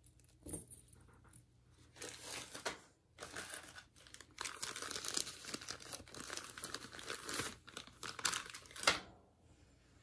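Bursts of crinkling, rustling handling noise, as of crinkly packaging or a bag being handled close by, running in spells and thickest through the middle, with a sharper crackle just before the end.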